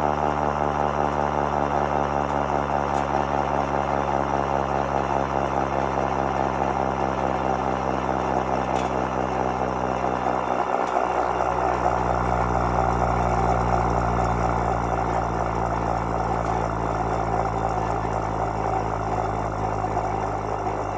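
Federal Q2B electro-mechanical siren running at a steady pitch: a loud, held wail over a deep motor hum. The low hum shifts about halfway through, and the sound eases off slightly near the end.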